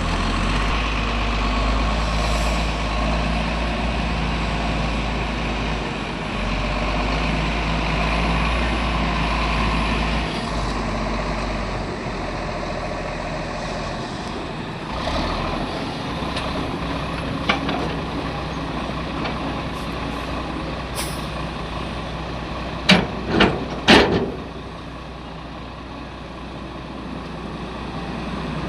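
Heavy diesel engines of an excavator and dump trucks running steadily, easing off about halfway through. Near the end come three short, loud bursts close together.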